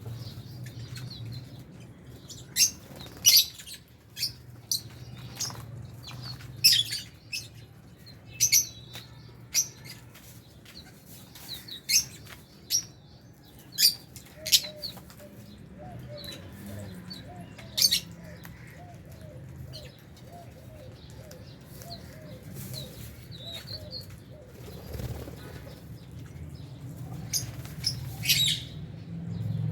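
A flock of lovebirds in an aviary giving sharp, high-pitched chirps and shrieks at irregular intervals, several of them loud. A softer run of quick chattering notes comes in the middle. A steady low hum runs underneath.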